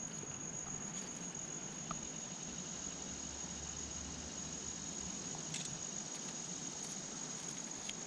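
Insects trilling in one steady high-pitched tone over a faint even hiss.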